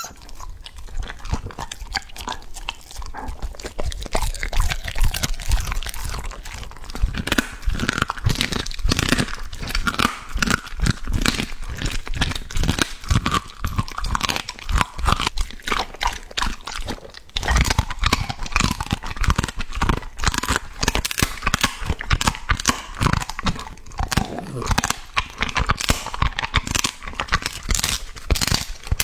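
Border collie crunching and chewing hard dried dog treats, dense irregular crunches of teeth through dried meat and, near the end, a fur-on dried ear.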